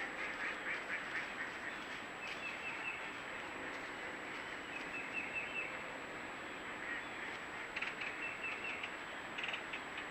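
Ducks calling in several short runs of quick quacks over a steady hiss.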